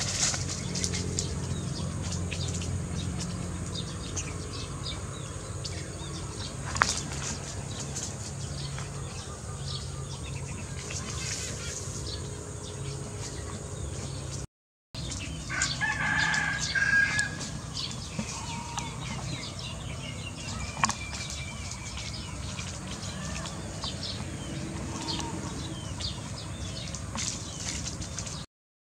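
Farmyard chickens calling, with one louder, longer call about halfway through, over a steady low rumble and light rustling.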